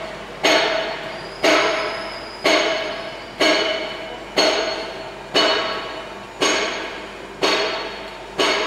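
Metal struck hard nine times at an even pace of about one blow a second, each blow ringing briefly before the next.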